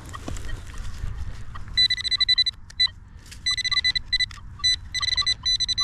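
Handheld metal-detecting pinpointer beeping in rapid pulses, signalling metal close by in the dig hole. Before the beeping starts, about a second and a half in, there is scuffing from digging in the dirt.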